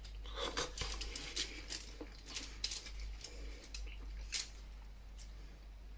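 Light clicks and scrapes of a fork on a plate, cutting into a roasted beet, in a quick irregular series.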